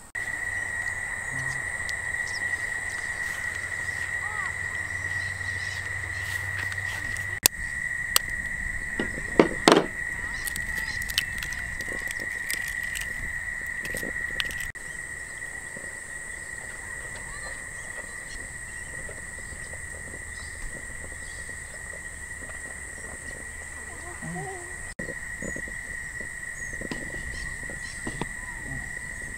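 Eggs cracked against the rim of a bowl: a cluster of sharp taps and cracks, with a steady high-pitched hum underneath.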